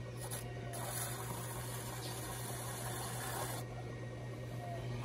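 A homemade tool cutting away excess clay at the base of a cup on a spinning pottery wheel: a steady scraping noise starting just under a second in and lasting about three seconds. A steady low hum from the Shimpo RK10 wheel's motor runs underneath.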